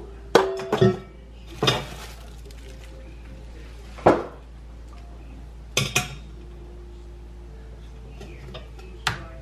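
Stainless steel mixing bowl and metal kitchenware clanking and clinking as they are handled and set down against a metal roasting pan. There are several separate sharp clanks spread out, the loudest near the start, some with a short metallic ring.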